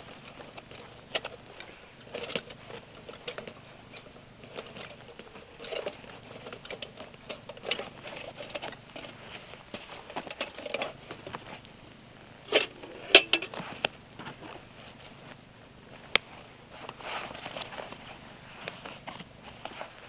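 Camping gear being handled at a backpack: rustling fabric and straps with small clinks and knocks, a louder clatter about two-thirds of the way through, and one sharp click soon after.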